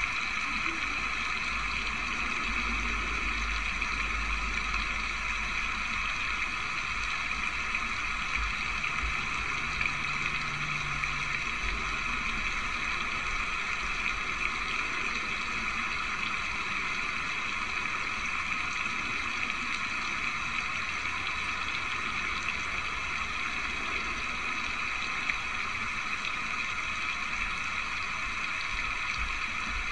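A steady, even noise with a faint low rumble underneath, like a background ambience track, with no speech.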